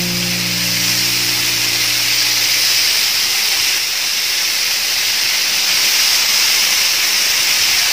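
Masala-coated seer fish steaks sizzling in oil on a hot tawa: a steady, loud hiss of frying. Background music with held low notes fades out about three seconds in.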